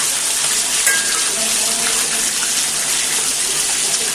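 Water running steadily from a tap, with a small click about a second in.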